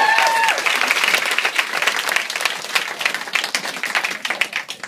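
Audience of students applauding, with a few cheering whoops at the start; the clapping thins out and fades near the end.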